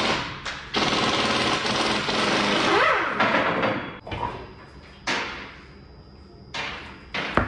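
Pneumatic impact wrench hammering the lug nuts off a Jeep Wrangler's wheel in one long run lasting about three seconds, its pitch dipping and rising near the end. Shorter bursts follow about five seconds in and near the end.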